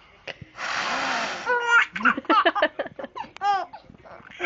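Young infant laughing in a string of short, high giggles, after a breathy whoosh of about a second near the start.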